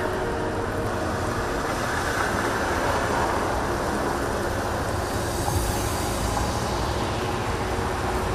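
Steady city traffic rumble, with a whoosh of a vehicle passing that swells and fades about six seconds in.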